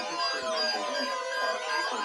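Several weather-alert radio receivers sounding their alarms at once: a steady tone, a short beep repeating about three times a second, and siren-like wails that sweep up and down and cross over one another. The alarms mark the receivers activating on a required weekly test.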